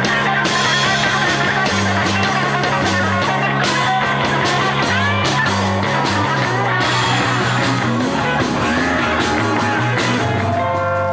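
Rock music with electric guitar, bass and drums, the bass moving through a repeating line under frequent drum hits; about ten and a half seconds in it changes to held, steady chords.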